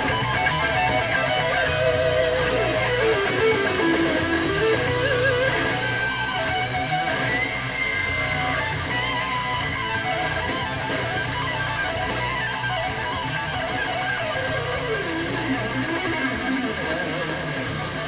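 Guitar music, electric and strummed guitars with sliding lead lines, played through a pair of DIY transmission-line speakers with 4-inch full-range titanium drivers.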